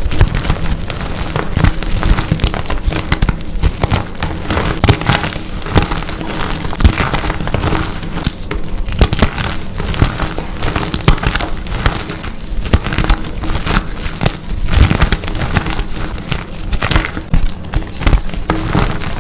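Dyed gym chalk blocks being crushed and crumbling, a dense, continuous crunching and crackling.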